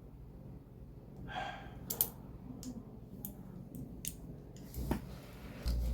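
Hand tools being handled and set down: a few separate light clicks and knocks spread over several seconds, with a brief rustle about a second and a half in.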